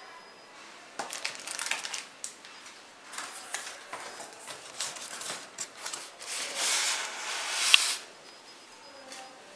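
Polystyrene foam packing blocks scraping and creaking against the cardboard box as they are pulled out, in a string of short scrapes. The longest and loudest scrape comes near the end, with a short squeak.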